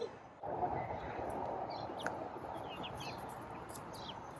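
Scattered short, high chirps from young chickens, each a quick downward slide, over a steady low rushing background.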